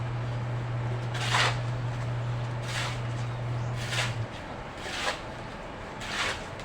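Five short scraping strokes, about one a second, over a steady low hum that stops about four seconds in.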